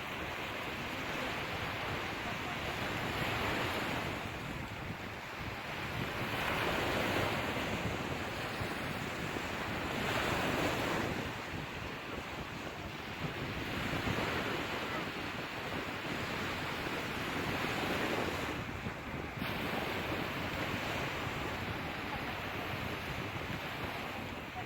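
Sea waves in a steady rush of surf, swelling roughly every three to four seconds as each wave comes in.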